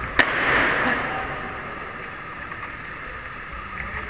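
A single sharp smack of a kickboxing strike landing, followed by a brief swell of shouting and noise from the people around the ring.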